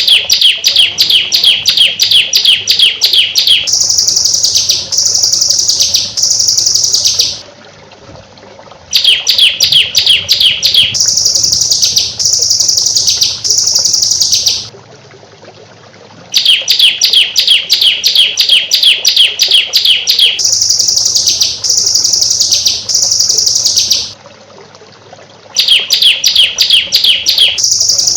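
Small songbird's song from a bird-song training recording, in the rapid-fire 'tembakan rapat' style. Each phrase is a fast string of sharp, clipped notes followed by about three longer, higher notes, then a short pause. The phrase repeats over and over, about every eight to nine seconds.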